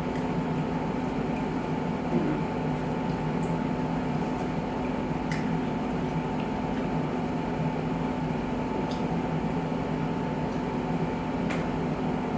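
Steady electrical hum of a room appliance, with a few faint clicks and wet smacks of someone eating.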